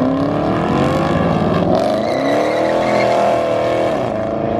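Car engine revving hard: the pitch climbs, holds high for about a second, then drops near the end.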